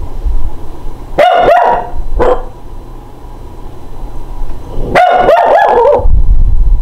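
Small Shih Tzu–Chihuahua mix dog barking: a quick run of high, sharp barks about a second in, a single bark just after, and another run of several barks near the five-second mark.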